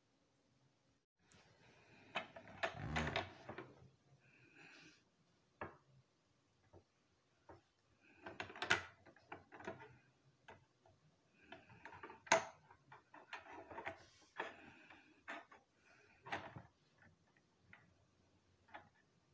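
Sticks of snapped-together plastic linking cubes being handled, slid and set down on a wooden table: scattered clicks, knocks and short rubbing scrapes, with the sharpest knocks about nine and twelve seconds in.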